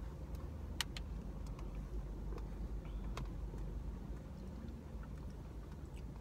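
Low, steady rumble of a car idling, heard from inside the cabin, with a few faint clicks from handling a plastic drink cup and straw.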